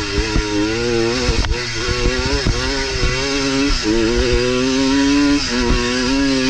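1973 Husqvarna 125 WR's single-cylinder two-stroke engine revving hard under race throttle, its pitch climbing and then dropping sharply several times as the throttle is worked.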